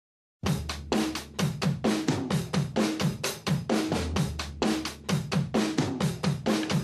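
Music: a steady, fast drum-kit beat of kick and snare drums over a low bass, starting about half a second in.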